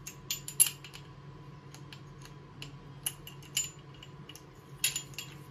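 Scattered light metallic clicks and clinks of small machined metal parts being handled: an M6 countersunk screw being fitted and turned by hand into a model steam engine's metal base and body, with a few sharper clicks near the start and near the end.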